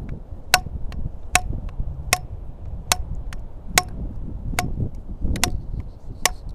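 A length of PVC pipe used as a fish club striking a fish's head again and again: eight sharp knocks, evenly spaced a little under a second apart, each with a short hollow ring. A low rumble of wind runs underneath.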